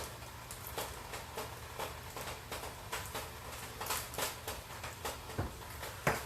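Light, irregular clicks and crinkles of hands unwrapping and crumbling a seasoning cube, with a couple of sharper taps about four and six seconds in.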